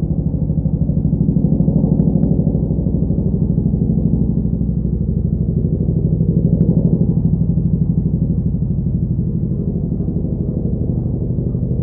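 Boeing CH-47 Chinook tandem-rotor helicopter running steadily, its rotor blades beating in a fast, even pulse over a deep engine and rotor drone.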